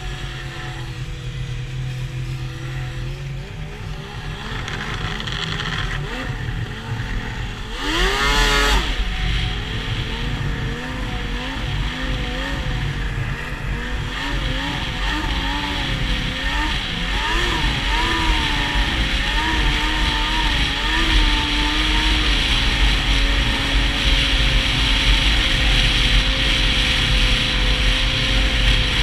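Yamaha SX Viper 700 triple two-stroke snowmobile engine under a rider's throttle, its pitch rising and falling with a sharp rev about a quarter of the way in, then holding steady at cruising speed for the last few seconds. Wind and track noise grow louder as speed builds.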